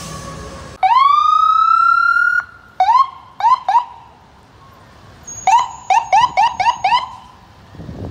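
Ambulance electronic siren. About a second in it sounds one long rising wail, held for about a second and a half. Then come short rising chirps: three near the third second, and a quick run of six between about five and a half and seven seconds.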